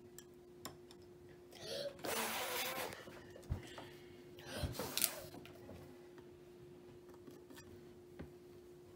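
A child blowing bubbles through a bubble wand: a breathy rush lasting under a second about two seconds in, then a shorter puff about five seconds in with a sharp knock. A faint steady hum runs underneath.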